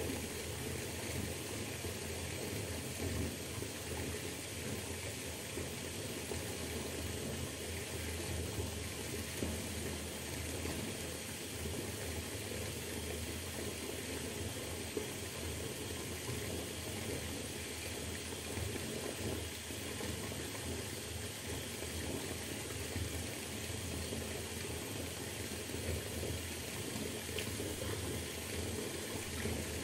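Water from a bath tap pouring steadily into a filling bathtub.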